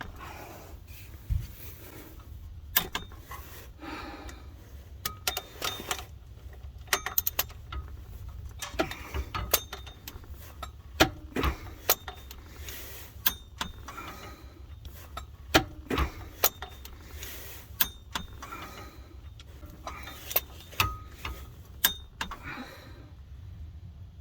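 Torque wrench ratcheting in short, irregular strokes on a bolt, with sharp metallic clicks and clinks of the tool, over a steady low hum.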